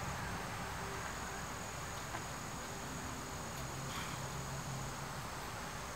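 Steady high-pitched chirring of insects, with a faint low hum underneath.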